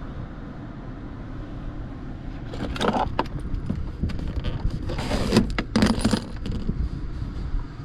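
Metallic clinking and jangling in a few short clusters from about two and a half to six and a half seconds in, the loudest near the middle, over a steady low rumble.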